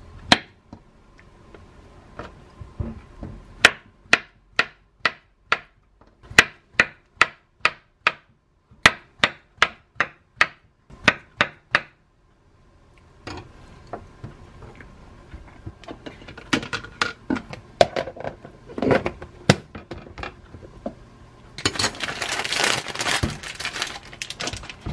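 A knife slicing peeled bananas on a wooden cutting board: a run of sharp knocks as the blade hits the board, about two a second, stopping about twelve seconds in. Near the end a plastic bag crinkles loudly.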